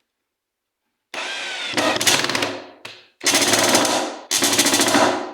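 Power drill driving a long self-tapping screw into a floorboard with no pre-drilled hole and no joist beneath. After a brief pause the motor whines up, rising in pitch, then runs in repeated bursts of fast rattling hammering as the screw is forced into the board.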